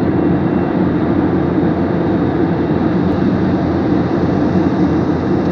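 Airliner cabin noise in flight: the steady, even rush of engines and airflow heard from inside the cabin.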